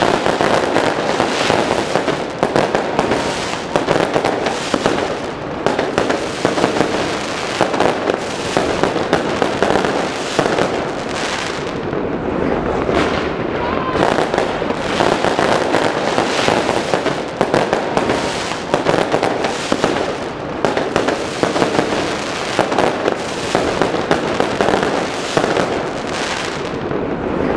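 Fireworks going off in a dense, unbroken barrage of bangs and crackles, many bursts overlapping every second.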